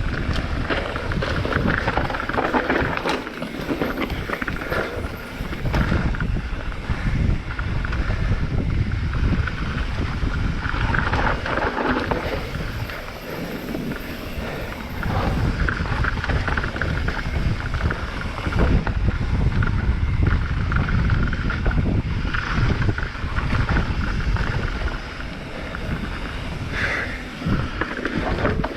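Mountain bike descending a rough trail at speed: wind buffeting the camera microphone over the clatter and rumble of the bike and tyres on loose, rocky ground, swelling and easing every few seconds.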